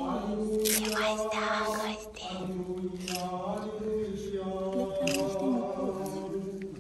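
Orthodox liturgical chant during a baptism service: unaccompanied singing on long held notes that move to a new pitch every second or two.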